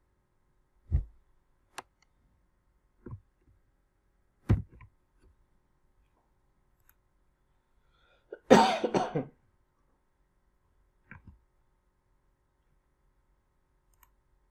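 A person coughing, the loudest cough about eight and a half seconds in, lasting under a second. A few short soft thumps and a click are scattered around it.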